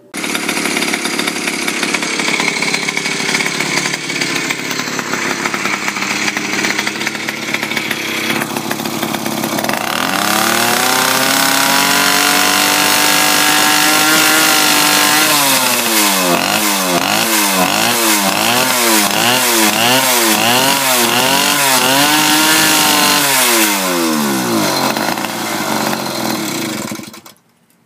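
The single-cylinder two-stroke kit engine of a motorized bicycle, running through a gutted muffler that is practically a straight pipe. It runs steadily at low speed, then revs up about a third of the way in and holds high. It is then blipped up and down over and over, about one and a half revs a second, before the revs fall away and the sound cuts off shortly before the end.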